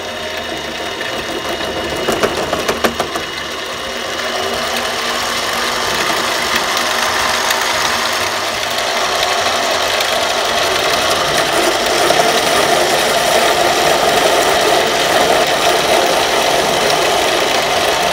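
Central Machinery mini lathe running with a carbide tool facing the cut end of a bolt in the chuck: a steady motor and cutting noise, with a few sharp clicks about two to three seconds in, growing louder and steadier from about four seconds on.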